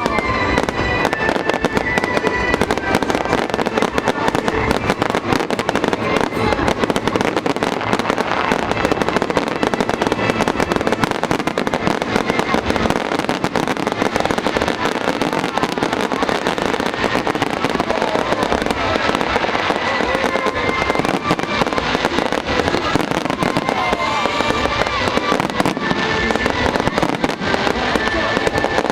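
A fireworks display's continuous barrage of bursts and crackling, with music playing alongside.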